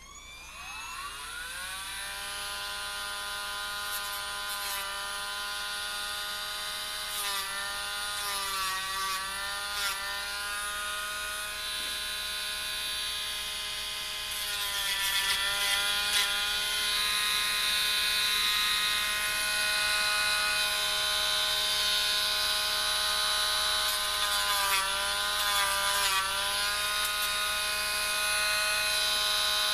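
Handheld rotary tool switched on and spinning up to speed, then running steadily with a high whine while its sanding bit takes the burrs off small plastic model parts. Its pitch sags briefly a few times as the bit is pressed to the work.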